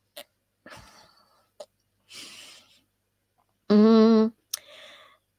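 A woman's breathing and soft sighs with small mouth clicks as she pauses with her voice faltering, then a short steady hum-like vocal sound about four seconds in.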